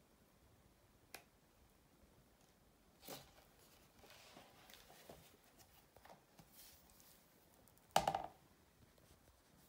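Faint paper sounds of a photo book being handled and its pages turned: a light click, a swish of a page, soft rustling, and one sharp slap about eight seconds in.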